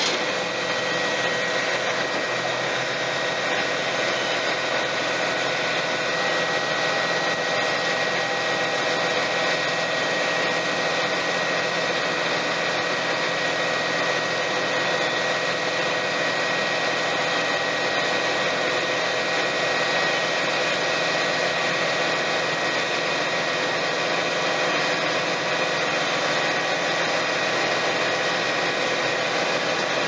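Vögele Super 1800 asphalt paver running steadily, heard close up from its operator's platform: constant engine noise with a steady high whine over it.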